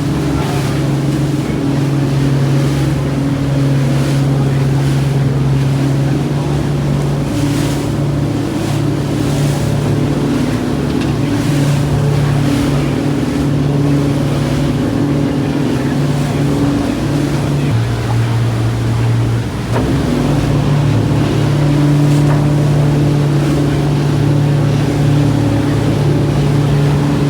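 Motorboat engine running steadily under way, its hum shifting slightly in pitch a few times, with wind and water rushing past the boat.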